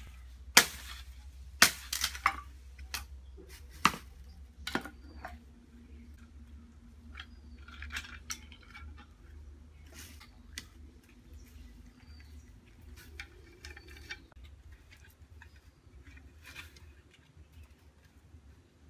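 Hand tools knocking on wood while a broom is made: about seven sharp strikes in the first five seconds as the wooden handle is worked on a block, then quieter clinks and shuffling of wooden slats and tools, with a few faint high chirps.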